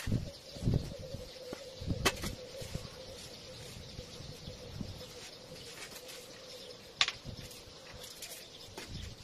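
Broom scrubbing and swishing over a wet tiled floor, with a few sharp knocks, over a faint steady hum.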